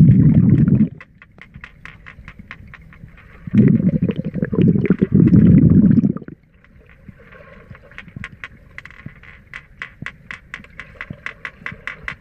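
Pool water heard underwater as a swimmer moves through it: two loud, muffled rushing rumbles, one at the start and one from about three and a half to six seconds in, then a run of sharp clicks and ticks, a few a second, over a faint hiss.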